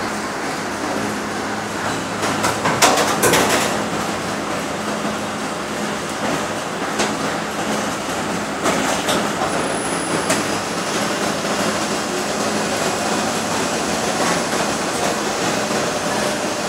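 Industrial gnocchi machine running: its electric motor gives a steady hum under a constant mechanical whirr. There is a short spell of clattering about three seconds in, and a few sharp clicks later.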